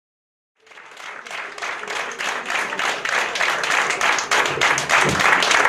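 Audience applauding, fading in about half a second in and growing steadily louder.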